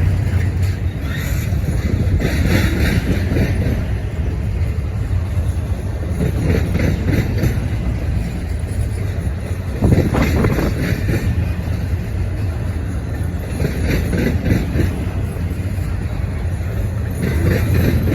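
Intermodal freight train's cars rolling past: a steady low rumble of wheels on rail, with repeated bursts of higher rattling every few seconds.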